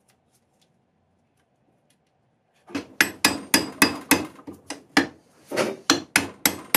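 A steel hammer taps a hand-held punch against the cast body of a Record No. 3 vice. It gives a quick run of sharp blows, about three a second, each with a short metallic ring. The blows start about two and a half seconds in and pause briefly partway through.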